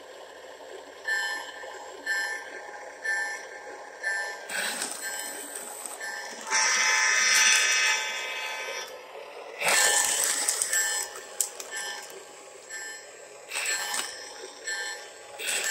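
Lionel O gauge diesel locomotive's onboard sound system: the bell ringing about once a second, then a long, loud horn blast, followed by a shorter horn sound and more bell strokes.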